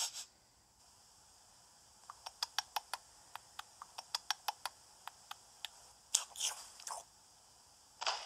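Small animal nibbling and gnawing: a run of quick, crisp clicks and crunches that thickens into a denser cluster about six seconds in, from the soundtrack of a stop-motion hamster film.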